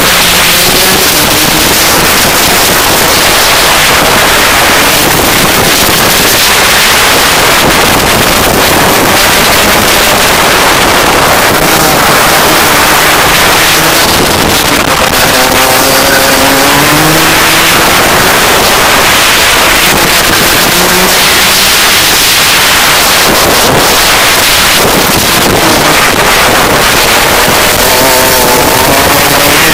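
Rotax DD2 kart's two-stroke engine running hard and accelerating, its pitch rising several times, over a loud wind rush.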